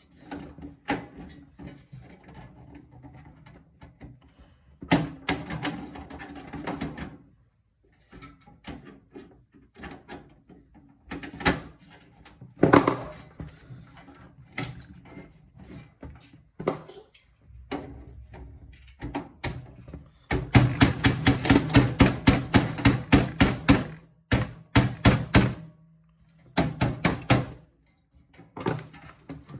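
Tool work on a metal PC case as a screw is being taken out: scattered clicks and knocks, then a fast run of clicking about two-thirds of the way through and a shorter run near the end.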